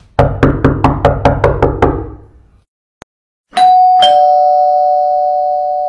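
A quick run of about eight sharp knocks, then a two-tone doorbell chime: a higher ding and a lower dong, both held ringing steadily.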